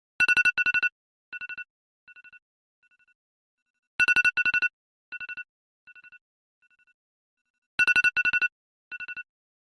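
Electronic alarm-clock ringtone: a high beep trilled rapidly in short bursts, two loud bursts followed by fainter and fainter echoing repeats. The pattern starts over about every four seconds, three times.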